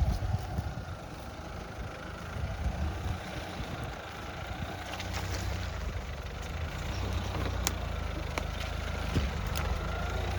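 Dacia Duster 1.5 dCi four-cylinder turbodiesel running at low revs while driving offroad, getting a little louder in the second half, with a few sharp clicks and knocks.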